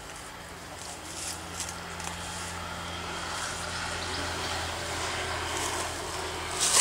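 A motor engine's steady low hum, growing louder about halfway through as it passes, with a brief sharp crackle near the end.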